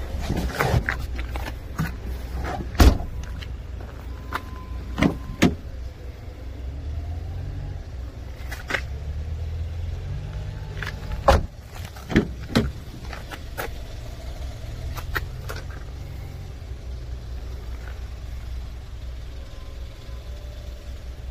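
Scattered clunks and clicks from a 2020 Kia Morning's boot floor cover and body panels being handled, over a low steady rumble. The loudest knocks come about three seconds in and a cluster about eleven to thirteen seconds in.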